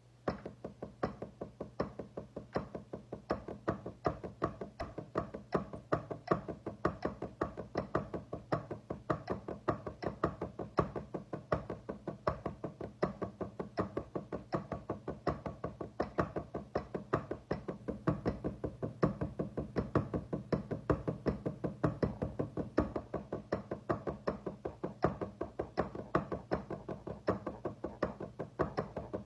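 Drumsticks striking a drum practice pad in a fast, steady stream of strokes, some hit harder than others, playing a polymetric exercise.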